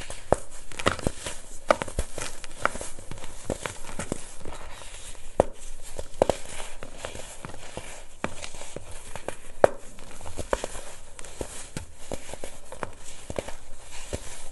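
Hands crushing and crumbling chunks of compacted baking soda over a plastic tub, close-miked: irregular soft crunches and snaps over a hiss of powder sifting through the fingers.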